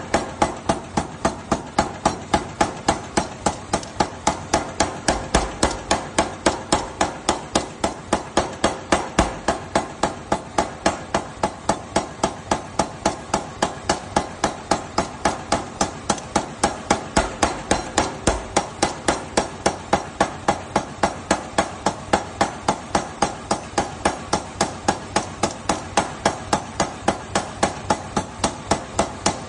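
A hammer striking red-hot steel as it is forged into a knife blade: rapid, evenly spaced blows, about three a second, each with a short metallic ring.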